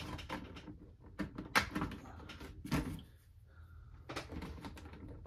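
Hard plastic clicking and knocking as the top of a Beyblade Burst stadium is fitted and snapped onto its base: a scatter of short sharp knocks, the loudest about one and a half and two and a half seconds in.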